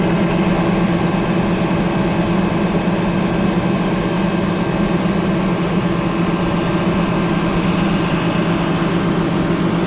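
A large engine running steadily at a constant speed, with an even hum and no change in pitch.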